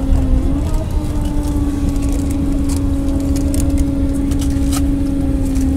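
Boeing 767 on its landing rollout, heard from inside the cabin: a steady low rumble of the wheels and airframe on the runway under an engine hum that holds one pitch. Scattered light clicks and rattles ride on top.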